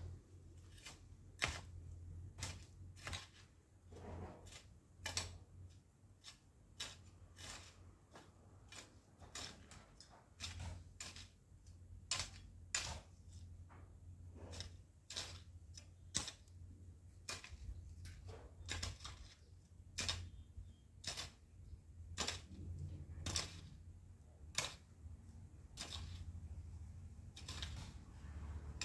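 A long-handled garden tool working the soil, giving irregular sharp clicks and taps about one or two a second over a low steady hum.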